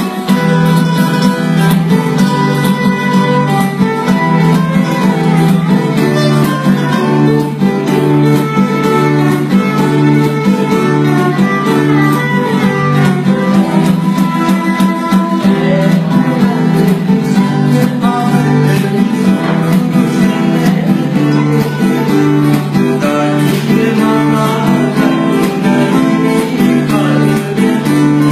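Two acoustic guitars playing a song together, a steady rhythm of chords with a melody line over it.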